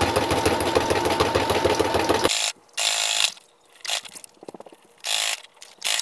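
Brother XR3340 computerized sewing machine running at speed, stitching through the paper journal pages with a fast, even needle rhythm over a motor whine. It stops suddenly a little over two seconds in, and two short bursts of noise follow.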